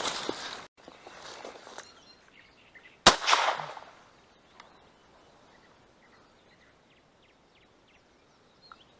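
Dry branches and brush rustling, then a single shotgun shot about three seconds in, loud and sharp with a short trailing echo, fired at a drake mallard.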